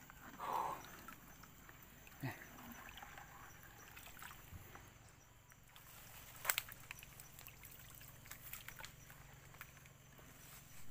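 A brief slosh of water in a plastic bucket about half a second in. Then faint rustling and scattered small snaps and clicks of someone moving through roots and mud, with a couple of sharper clicks past the middle.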